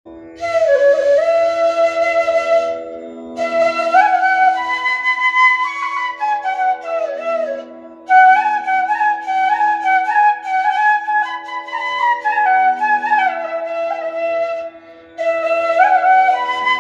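An E middle bansuri (Indian bamboo flute) playing a melody in short phrases with slides and ornaments, over a steady drone.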